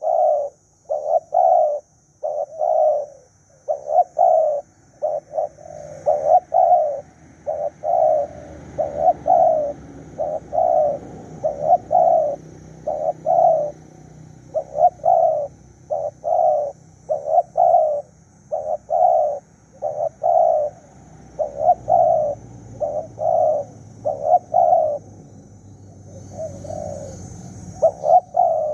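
Spotted dove cooing: low coos in short phrases of two or three notes, repeated over and over without a pause.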